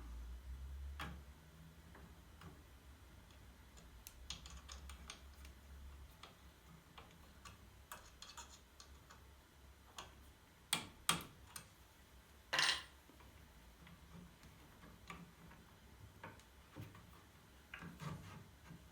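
Irregular light clicks and taps, with a few louder sharp clicks and a short knock around the middle. A faint low hum stops about six seconds in.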